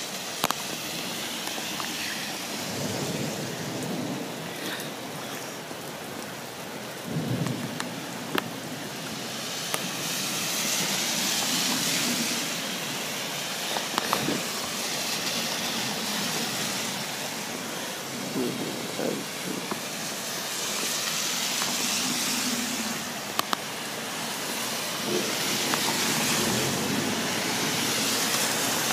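Heavy thunderstorm rain pouring with a dense steady hiss that swells and eases several times. Short low rumbles and a few sharp ticks break in now and then.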